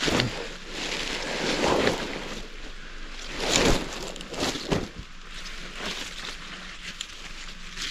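Rustling and crackling of leafy mustard greens and backpack fabric being handled as the greens are stuffed into a backpack, in irregular bursts, the loudest about three and a half seconds in.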